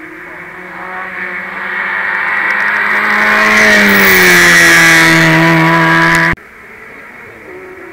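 Hatchback race car's engine at high revs growing louder as it approaches, with tyre hiss off the wet road, its pitch dropping as it passes close by. The sound cuts off abruptly about six seconds in, leaving a fainter engine further away.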